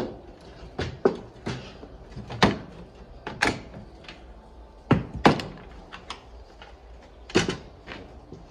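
Wooden ferret-hutch lids with wire-mesh panels being shut and knocked against the hutch frames: a series of irregular sharp knocks, the loudest right at the start.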